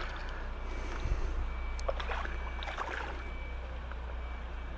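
A hooked carp being played at the surface of a pond, water sloshing and splashing lightly, over a steady low rumble.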